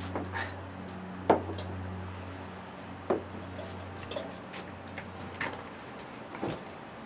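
A few scattered knocks and clicks of things being handled on a desk, the sharpest a little over a second in and again about three seconds in, over a steady low hum.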